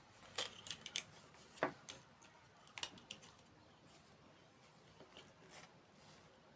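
Light, sharp clicks and taps of small hard objects, in a few quick clusters during the first half and only faint ones afterwards.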